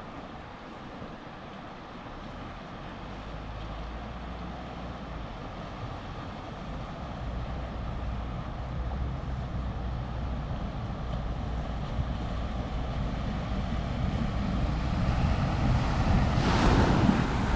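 Rushing river water with a four-wheel-drive ute's engine growing steadily louder as it drives through the river crossing towards the bank. Near the end its wheels push up a splashing bow wave, the loudest part.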